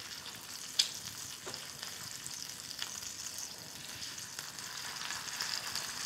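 Bacon frying in a cast iron skillet: a soft, steady sizzle with a few small pops.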